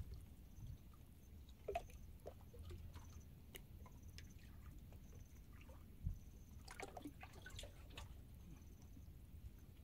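Very faint water lapping and dripping against rocks, with scattered small clicks and a single soft knock about six seconds in, over a low rumble.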